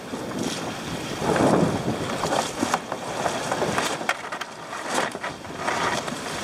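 Water rushing and splashing along the hull of a paraw outrigger sailboat under sail, with a louder surge about a second and a half in and a few short, sharp knocks.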